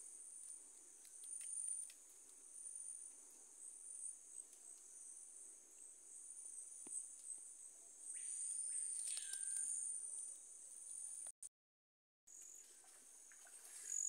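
Rainforest insect chorus: a steady, high-pitched shrill with a faint pulsing. About eight seconds in, a short call rises and falls, and the sound drops out completely for about a second near the end.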